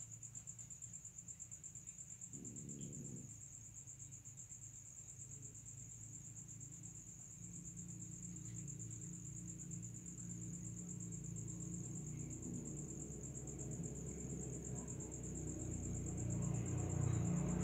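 Crickets trilling in a steady, high, fast-pulsing chorus at night. A deeper low-pitched sound swells gradually over the second half.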